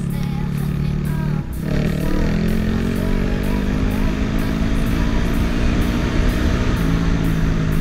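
Off-road motorcycle engine running under way. About a second and a half in the note drops as the throttle closes, then climbs again as the bike accelerates and settles into a steady run.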